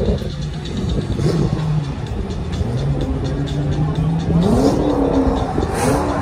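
Drift car's engine running at the start line, its pitch gliding up about four seconds in and held briefly before dropping back. Event music plays underneath.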